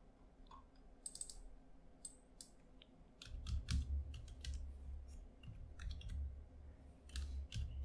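Computer keyboard typing, faint: a few scattered clicks at first, then a quick run of keystrokes from about three seconds in, with a low rumble under them.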